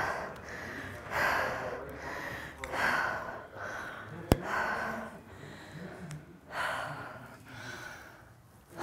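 A woman breathing hard and panting, with a loud breath about every second and a half: she is out of breath from high-intensity exercise. A single sharp click comes about four seconds in.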